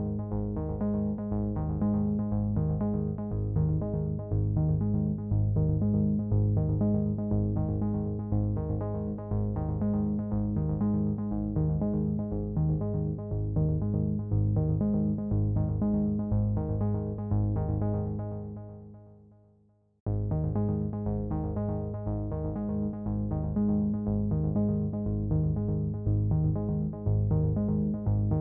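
Background synthesizer music with a steady beat; it fades out about two-thirds of the way through, then starts again abruptly.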